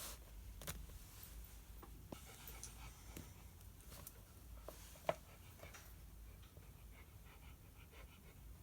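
Faint pen writing on paper, with a few light taps and one sharper click about five seconds in, over a low steady room hum.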